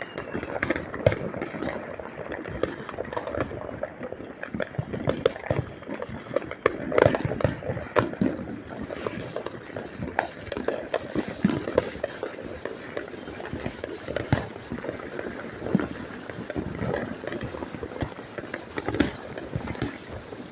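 Neighbourhood New Year's fireworks going off: many sharp bangs and crackling pops at irregular intervals, with a few louder bangs about a second, seven and eight seconds in.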